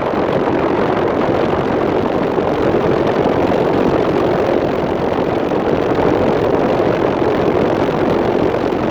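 Steady rush of air from a running 12,000 BTU mini-split heat pump, its fan blowing air across the microphone.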